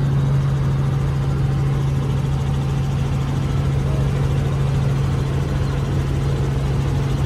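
Small helicopter's engine and rotor drone heard from inside the cabin in flight: a steady low hum with rushing noise over it.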